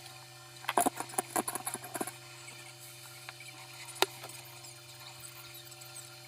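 Small parts of an electric fan being handled: a quick run of light clicks and rattles, then a single sharp click about four seconds in, over a steady low hum.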